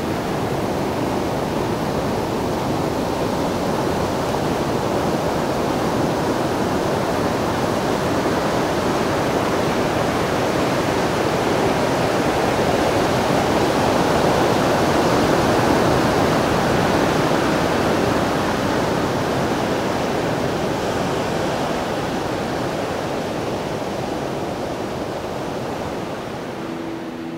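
Steady rushing noise of water, swelling slowly toward the middle and easing off near the end.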